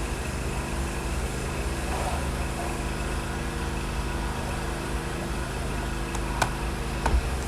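Steady mechanical hum from a running machine, with a couple of light clicks or knocks near the end.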